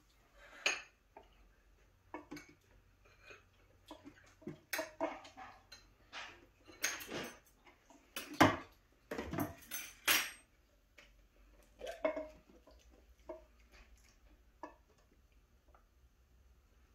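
Kitchen handling sounds: bottles, caps and a metal pot knocking and clinking as seasonings and sesame oil are poured over rice cakes, with the busiest run of knocks around the middle.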